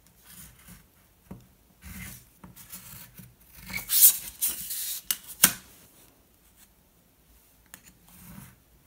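Embossing stylus scratching along card stock against a metal ruler, scoring fold lines in several short strokes. Around the middle the sheet and ruler are shifted on a cutting mat, a louder rustling scrape ending in a sharp tap as the ruler is set down.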